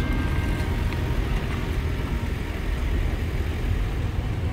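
Heavy diesel truck pulling away, its engine a steady low rumble.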